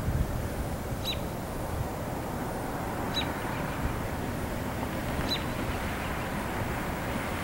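Low, steady rumble of distant SD40-2 diesel locomotives approaching. Over it, a bird gives a short, falling high chirp about every two seconds.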